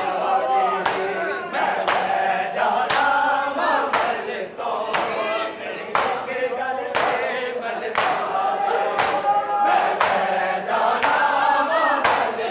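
Large group of men chanting a noha in chorus, with sharp, rhythmic chest-beating slaps (matam) at an even pace keeping time with the chant.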